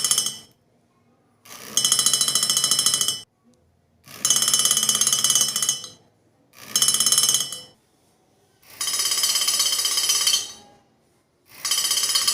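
Alarm sounder of a homemade laser-beam and LDR-sensor security alarm going off in repeated bursts of one to two seconds, with short quiet gaps between them. Each burst is a high-pitched, rapid ringing, 'ton ton ton'. It sounds whenever the laser light is taken off the LDR sensor.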